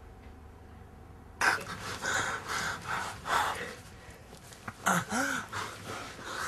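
A person's heavy panting breaths and gasps, starting suddenly about a second and a half in and coming in quick succession, with a short wavering moan about five seconds in.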